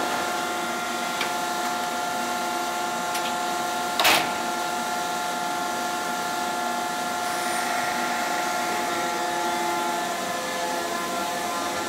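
Keisei 3500 series electric train standing at the platform, its onboard equipment humming steadily with several fixed tones. A single loud door thud comes about four seconds in, with a few faint clicks before it.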